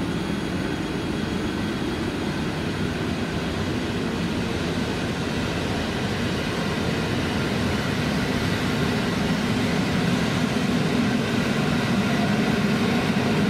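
Intercity passenger train hauled by an EP09 electric locomotive running at the platform: a steady low rumble with a few faint high steady tones, growing louder toward the end.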